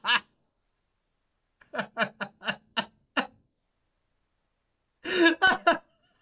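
A man laughing in bursts of quick pulses: a short run around two seconds in and a louder one near the end, with dead silence between.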